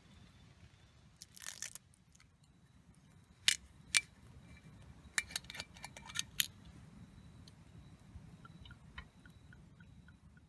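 A brief scraping rustle, then a series of sharp clicks: two loud ones about half a second apart, a quick cluster of several more, and a few faint ticks near the end.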